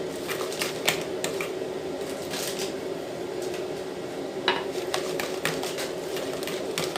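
A utensil stirring thick semolina cake batter in a mixing bowl, knocking and scraping against the bowl in irregular clicks. A steady low hum runs underneath.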